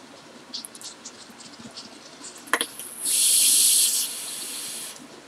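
A person draws on a box-mod vape, with faint crackles and a click, then blows out a big cloud of vapour: a strong breathy hiss lasting about a second, starting about three seconds in and trailing off softer.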